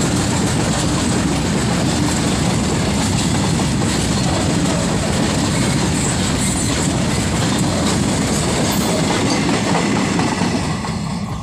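Indian Railways freight train of open wagons passing close by at speed, a steady noise of wagon wheels running on the rails. The noise drops off near the end as the brake van at the tail goes by.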